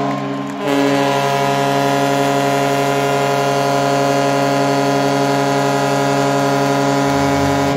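Arena goal horn, a ship-style air horn, sounding a long steady blast to mark the home team's win. It breaks off briefly about half a second in, then holds one unchanging note with many overtones for about seven seconds before cutting off.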